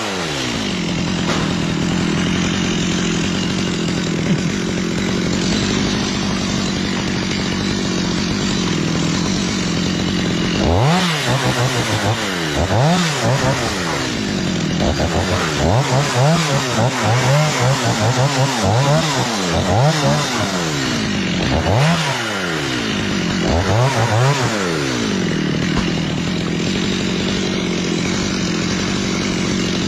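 Two-stroke chainsaw running steadily. About a third of the way in it is revved up and down a dozen or so times in quick succession, then it settles back to a steady run near the end.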